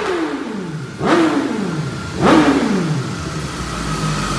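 2017 BMW S1000RR's inline-four engine with an Akrapovic exhaust winding down after a full-throttle dyno pull: the pitch falls, is revved briefly back up twice about a second apart, and settles toward idle near the end.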